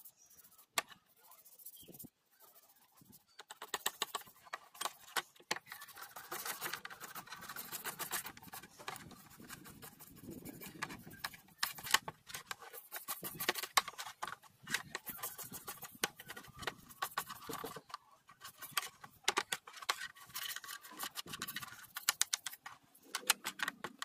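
Rapid, irregular clicking and scraping of metal on metal from hand work on a pocket knife's parts. It starts a few seconds in after a few single clicks and pauses briefly about three-quarters of the way through.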